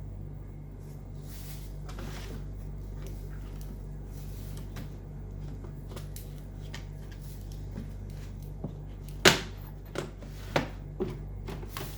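Toys and containers being handled and set down, with light scattered clicks and then several sharp knocks from about nine seconds in, over a steady low hum.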